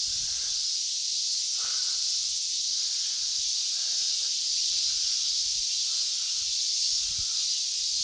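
Chorus of cicadas in the summer trees: a steady, unbroken high-pitched hiss.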